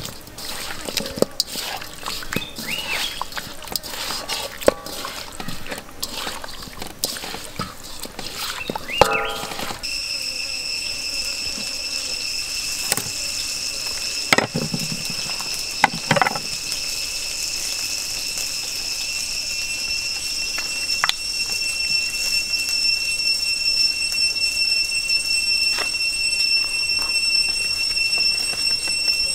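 Wet squishing and slapping of hands kneading marinade into raw chicken legs in a steel wok, then a few separate knocks of a cleaver and skewering on a wooden block. About a third of the way in, a steady high-pitched insect drone starts and carries on to the end.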